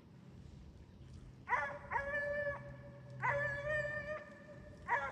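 Hounds baying, with about four drawn-out bays starting a second and a half in; the middle two are held longest.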